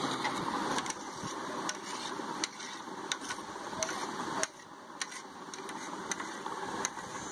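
A knife clicking and scraping against a metal tray and steel bowl as set jelly is chopped into pieces: sharp clicks at uneven intervals over a steady background noise.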